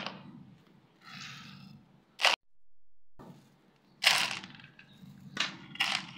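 Small stones and pebbles rattling and clattering into the bed of a plastic toy trailer in several separate bursts, the loudest about four seconds in, with a brief dead-silent gap near the middle.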